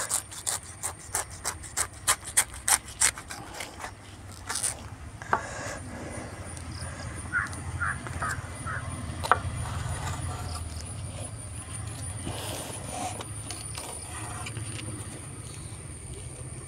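Knife sawing through a banana-leaf wrapping, a quick run of crisp crackling clicks that stops about four and a half seconds in. After that, a steady low rumble, a thin high steady tone and a few short chirps remain.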